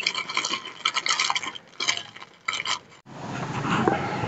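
Plastic snack bag of chicharon (pork rinds) crinkling and crackling as it is crumpled in the hands. It cuts off about three seconds in, giving way to a softer steady hiss.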